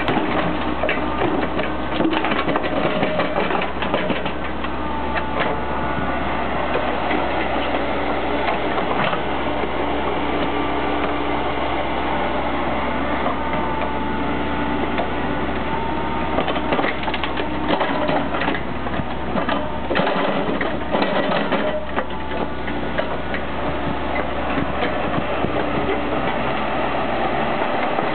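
Atlas 1304 wheeled excavator's diesel engine running steadily under load, with a whining tone that shifts in pitch as the boom and bucket move. Clods of soil knock and thud into the steel bed of a tracked mini dumper, mostly in a cluster between about 17 and 22 seconds in.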